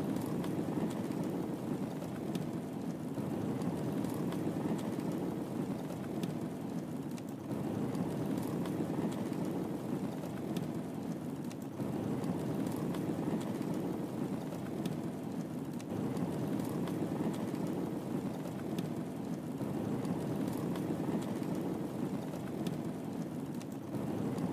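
Wood fire burning in a fireplace: a steady low rush of flame with scattered sharp crackles and pops.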